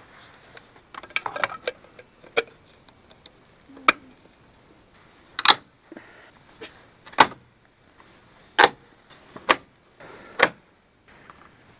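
Sharp clicks and knocks from hand work refitting a Jeep Wrangler's grille and headlight trim: a scatter of small clicks, then about five loud snaps a second or so apart.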